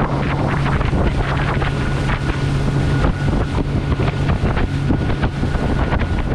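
Small motorboat under way: a steady engine hum beneath heavy wind buffeting on the microphone.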